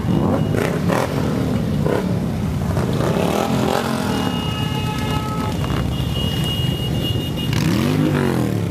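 A procession of motorcycles, mostly Harley-Davidson V-twins, riding past at low speed, many engines running together. Near the end one engine rises and falls in pitch as it revs or passes close.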